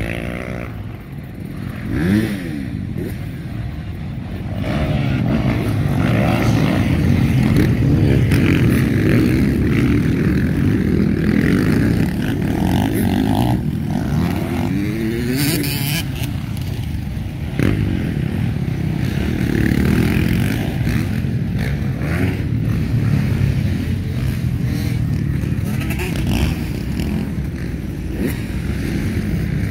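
Several motocross bikes racing around a dirt track, their engines revving up and down as they pass. The sound builds about five seconds in and stays loud.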